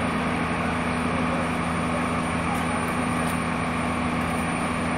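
A heavy engine running steadily: an even, unchanging drone with a low hum.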